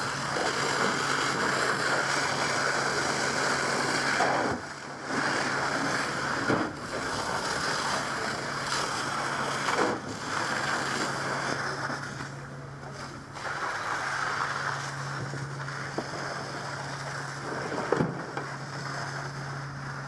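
Fire hose stream hissing as it soaks smouldering debris during mop-up, with a steady low hum underneath. The spray noise dips briefly several times, around 4 to 5 seconds in, near 10 seconds, and for a second or so a little after 12 seconds.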